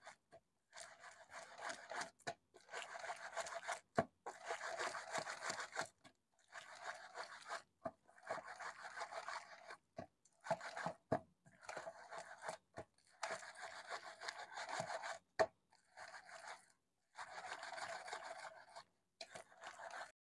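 Ripe palmyra palm fruit rubbed by hand against a perforated stainless-steel plate to squeeze its pulp through the holes: faint scraping in about a dozen bouts of a second or two, with short pauses between.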